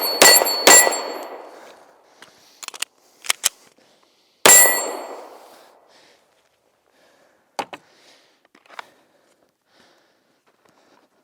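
SIG P320 Legion pistol firing: two shots about half a second apart right at the start and a third about four and a half seconds in, each followed by a metallic ring typical of a struck steel target. Light clicks come between the shots, with a sharper click near eight seconds.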